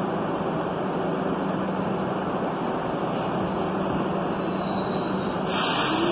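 R62 subway train pulling out of an underground station: a steady rumble and hum, a faint gliding whine about halfway through, and a short loud hiss near the end as the last car moves off.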